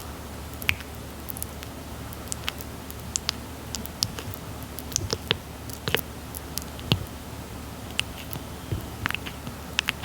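Red-footed tortoise biting and chewing papaya: irregular soft, wet clicks and squishes, a few a second, over a steady low hum.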